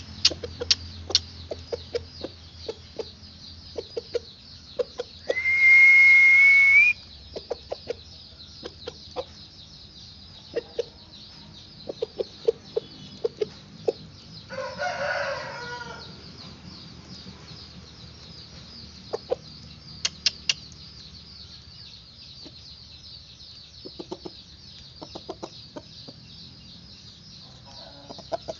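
Aseel chickens clucking in short calls scattered throughout, with a rooster crowing once, lasting about a second and a half, near the middle. About five seconds in, a loud steady high whistle lasts about a second and a half, rising slightly at its end.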